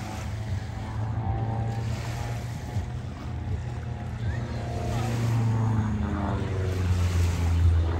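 An engine droning steadily, its pitch slowly gliding, growing louder toward the end.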